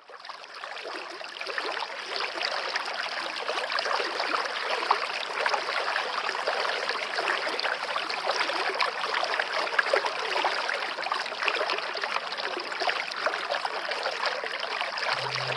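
Waterfall water running and splashing in a steady, crackling rush that fades in over the first second or two. A low steady tone comes in just before the end.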